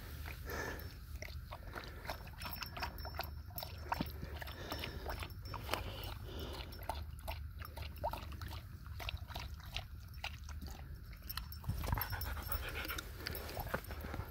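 Husky lapping water from a small rock pool: a quick, irregular run of wet clicks and slurps.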